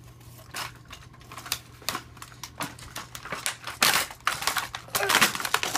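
Plastic toy packaging being handled: a plastic tray and a clear bag of small toy parts clicking and crinkling as they are pulled from a cardboard box. The clicks are sparse at first and get busier and louder from about four seconds in.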